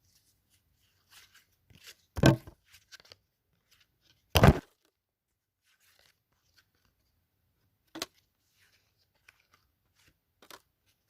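Trading cards and their pack wrapper being handled: scattered faint rustles and clicks, with two loud thumps about two seconds apart and a sharper click later.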